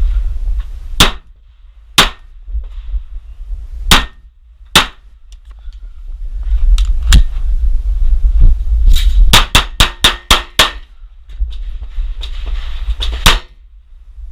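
Glock 19 9mm pistol fired repeatedly during a timed course of fire: single shots spaced a second or two apart, then a fast string of about six shots in quick succession, then a last shot near the end. A low rumble runs under the shots.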